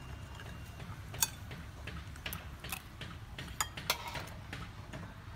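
Metal spoons clinking and scraping on ceramic plates while eating rice: a scatter of light clicks, the sharpest about a second in, over a low steady background rumble.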